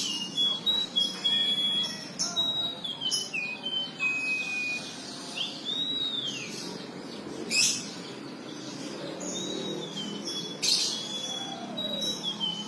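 Domestic canary singing an unusual song: clear whistled notes, some held level and some sliding down or arching up and over, broken by several loud sharp chip-like notes, the loudest a little after halfway and near the end.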